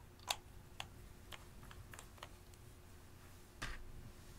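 Handling of small plastic makeup cases: about half a dozen light clicks and taps, the sharpest a third of a second in, and a brief louder rustle near the end.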